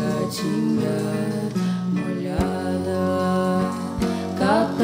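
Live band music: a plucked guitar playing held, ringing notes over a low drum hit that falls about every second and a half.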